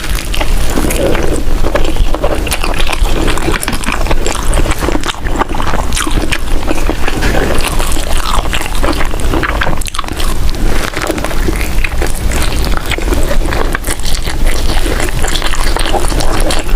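Close-miked chewing and biting of vegetable vermicelli: a loud, continuous run of wet smacks and small crunchy clicks, without pause.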